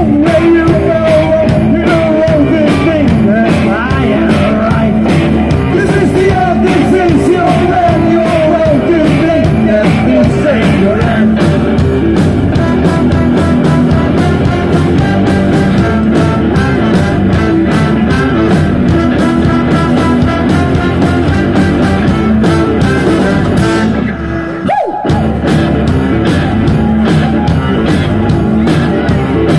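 Live rock and roll band playing loudly: electric guitars and drum kit, with a singer's voice over them. The band drops out for a moment about three-quarters of the way through, then comes back in on a held note.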